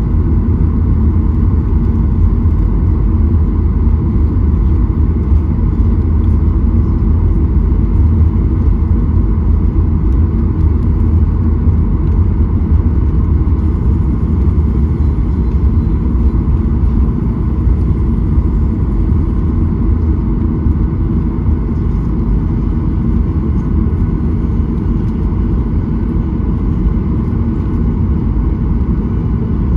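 Cabin noise of a Boeing 737-800 taxiing: a steady low rumble from its CFM56-7B engines at low thrust and the airframe rolling along the taxiway, even throughout.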